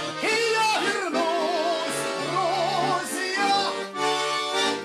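A voice singing long notes with vibrato over held button accordion (bayan) chords, the closing line of a short folk-style song.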